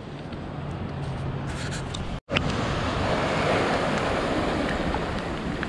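Surf washing on a beach, with wind noise on the microphone and a faint steady low hum at first. The sound drops out for an instant about two seconds in; after that the surf is louder.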